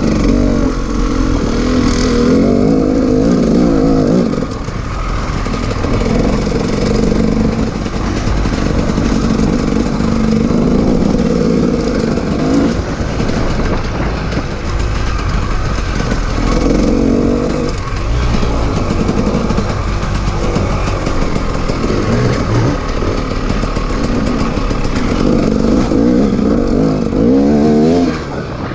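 KTM 300 two-stroke enduro dirt bike engine under way on a trail, revving up and down with the throttle, with quieter off-throttle stretches between bursts and a quick rise in revs near the end.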